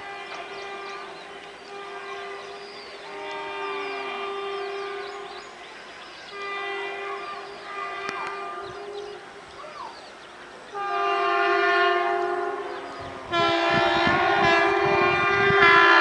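WAP-4 electric locomotive's horn sounding one steady note in a string of long blasts, about five, each louder as the locomotive closes in. The last two are loud and close, with a low rumble under the final blast.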